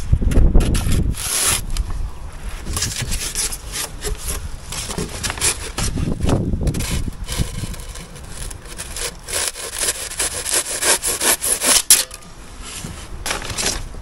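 Hand saw cutting through a white polystyrene insulation board in repeated back-and-forth strokes, quickening to about three strokes a second before stopping near the end.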